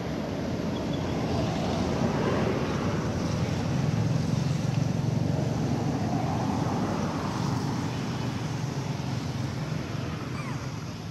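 Low rumbling outdoor background noise that swells in the middle and eases toward the end, with a faint short rising squeak near the end.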